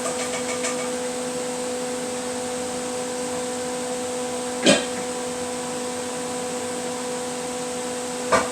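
A steady hum over an even hiss, broken by two short, sharp knocks, one about halfway through and one near the end.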